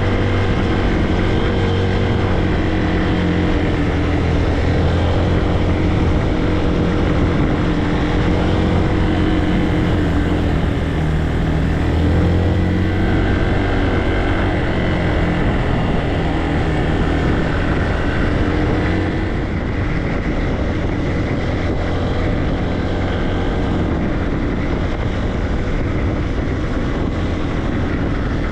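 Motorcycle engine running steadily under way, with wind noise on the microphone. The engine pitch shifts about twelve seconds in, and the sound eases slightly a few seconds later.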